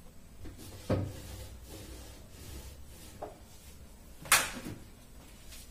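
Kitchen cupboard doors and things inside being handled: a knock about a second in, a small tap a little after three seconds, and a louder bang just past four seconds.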